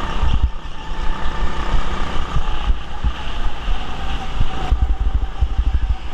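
Go-kart's motor running steadily under throttle as it corners around the track, heard from on board, with uneven wind buffeting and rumble on the microphone.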